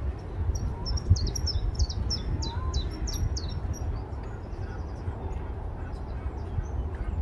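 Small songbirds chirping: a run of quick high notes over the first few seconds, then a short rapid trill, over a low steady rumble.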